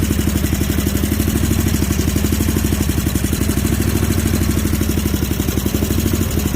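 Snapper Pro zero-turn mower's engine idling steadily, with fast, even pulses and no change in speed. Seafoam has just been added, and the owner thinks the carburetor is partly stopped up.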